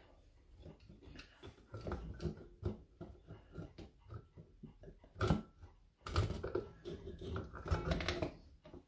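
Irregular clicks, knocks and rustling as a hand works at an Ansonia clock movement inside its slate case, trying to free it from the front. One sharper knock about five seconds in; it is busiest over the last three seconds.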